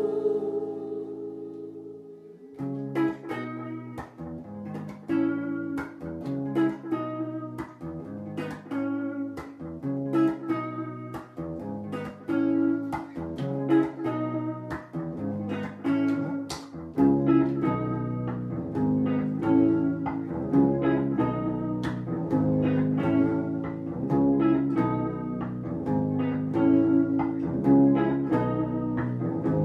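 Background music: a held chord fades over the first couple of seconds, then a run of picked notes comes in, and a fuller low part joins about halfway through.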